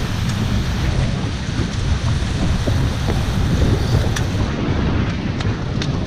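Wind buffeting the microphone of a camera on a small beach catamaran sailing fast, a steady low rumble with the hiss of water rushing past the hulls. A few light ticks come in from about four seconds in.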